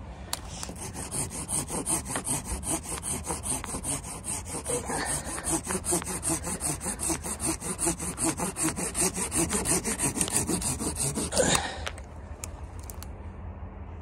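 Folding pruning saw cutting through a dead branch by hand: a long run of quick, even back-and-forth rasping strokes. It stops with a sharp crack about eleven and a half seconds in.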